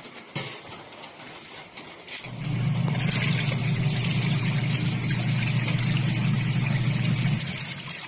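Washing machine washing: its wash motor starts about two seconds in, runs steadily for about five seconds churning the water and clothes, then stops, following the wash timer's on-off agitation cycle.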